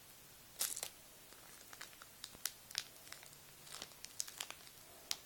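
A Pokémon booster pack's wrapper being torn open and crinkled by hand: a series of short, sharp crackles, the loudest cluster about half a second in.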